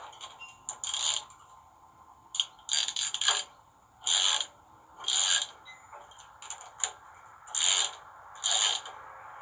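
Ratchet wrench clicking in short bursts of strokes, about eight in all, tightening the nuts of the clamps on a frayed steel winch cable.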